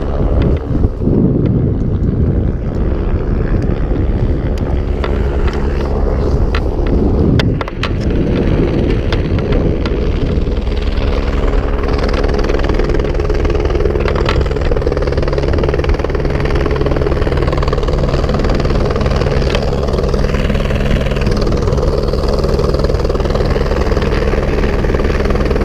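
AS350 single-engine turbine helicopter flying in and coming to a hover nearby, its rotor making a steady low rumble with several fixed tones from about ten seconds in, mixed with wind noise on the microphone.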